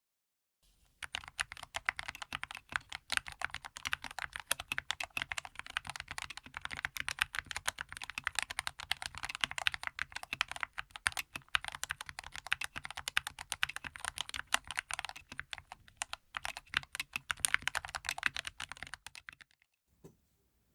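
Fast, continuous typing on a Skyloong SK61S mechanical keyboard with Gateron Yellow linear switches and stock keycaps: a dense run of key clacks that starts about a second in and stops about a second before the end.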